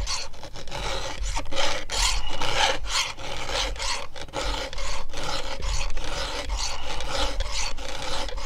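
Chainsaw file rasping across the cutters of a 3/8-pitch chain on a Stihl MS661 bar in repeated strokes, sharpening the dulled chain by hand.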